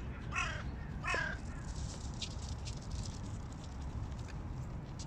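Hooded crows cawing: two short calls about half a second and a second in, followed by faint scattered clicks.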